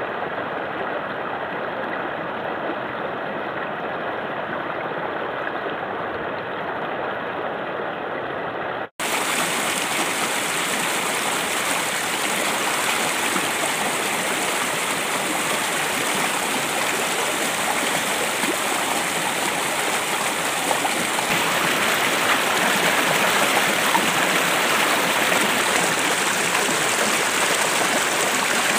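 Shallow, rocky stream flowing steadily, a loud even rush of water. About nine seconds in there is an abrupt cut, after which the water noise is brighter and hissier.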